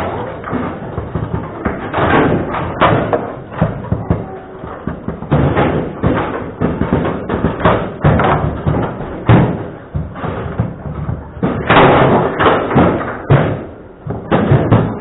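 Table football (babyfoot) in play: the ball striking the figures on the rods and bouncing off the table walls. It is a rapid, irregular run of knocks and thuds, with several bursts of quick hits.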